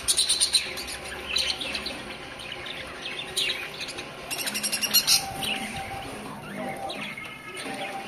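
Several budgerigars chirping and chattering in short, quick, high twitters that come and go.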